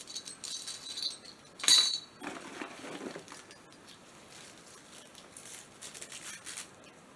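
Items being handled and unpacked by hand: light clinks and rattles, the loudest burst about two seconds in, then quieter scattered handling.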